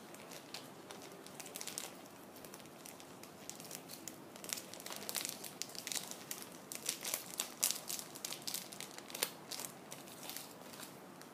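Packaging being crinkled and handled: a run of quick, irregular crackles, sparse at first, busiest in the middle and thinning out near the end.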